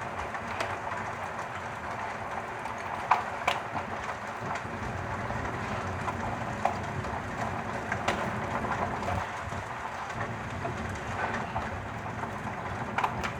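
Heavy rain pouring steadily, with scattered sharp clicks of hailstones striking.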